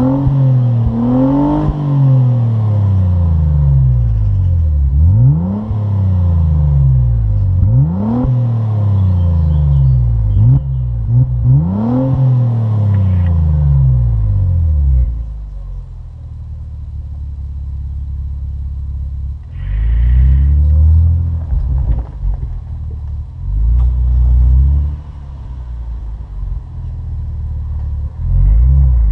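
Opel Insignia OPC's turbocharged V6 through its stock exhaust, revved repeatedly: about five quick rises in revs, each falling back more slowly, then settling to a steady idle about halfway through, with short blips of the throttle and one more rev near the end.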